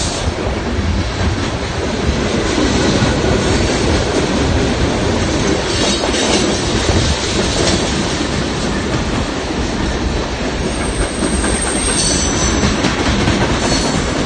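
A mixed freight train's cars (a covered hopper, tank cars, boxcars) rolling past at close range, their steel wheels clattering over the rail joints in a steady, loud rumble. A brief high wheel squeal comes in about eleven seconds in.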